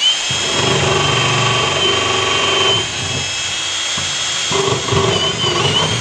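24-volt cordless drill running at speed with a number 20 bit, match-drilling a seat belt bracket hole through the aluminium cabin structure, with a steady high motor whine. The bit's grinding in the metal eases about three seconds in and bites again about a second and a half later.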